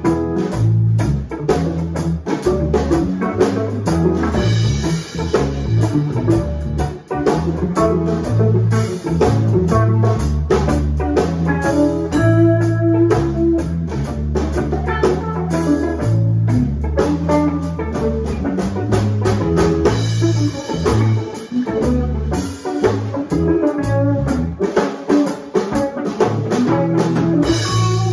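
A live instrumental band jam: two electric guitars, a bass guitar and a Gretsch drum kit playing together, with busy drumming over a running bass line.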